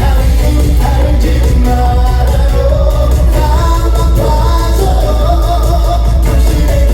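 Live trot song played loud over a PA: a male voice singing over an amplified backing track with a heavy, steady bass.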